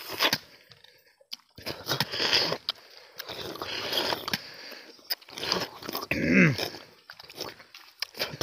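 Two people slurping and biting into tender palmyra fruit (ice apple), sucking out the juicy jelly-like flesh in repeated wet bursts with clicks of mouth and fruit. About six seconds in a short low sound falls in pitch.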